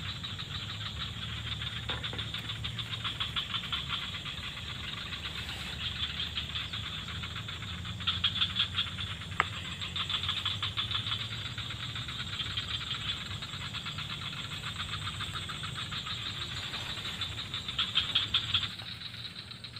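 Forest insects, cicadas or crickets, chirring in a dense, fast, steady pulse, swelling louder twice, with a low steady hum underneath.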